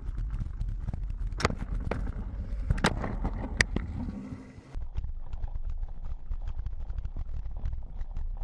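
A mountain bike ridden fast over a rough dirt track, heard from a handlebar-mounted action camera: a constant rattle and rumble of the bike shaking over the ground. About one and a half, three and three and a half seconds in there are sharp loud knocks, the crash in which the bike hits an antelope. A short lull follows, then the rattle of the ride starts again suddenly.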